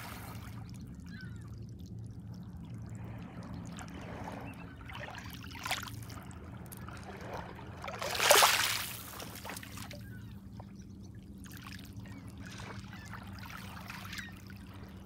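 Small lake waves lapping and washing over a pebble shore, with one louder splash about eight seconds in and a smaller one a little before it, over a steady low hum.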